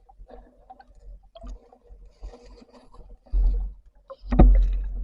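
Underwater sound from a diving camera: faint crackling and a low hum, then two heavy low surges of water-movement noise about three and four seconds in, the second with a sharp knock.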